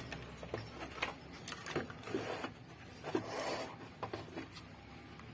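Scattered small clicks and rustles of hands handling tools and an amplifier circuit board on a workbench, with a short rustle a little past halfway.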